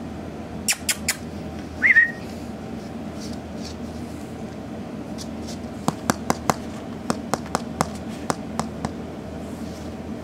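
Pembroke Welsh Corgi puppy giving one short, high whimper about two seconds in, then a quick run of light clicks and taps from its claws on the hard floor as it moves about, over a steady low room hum.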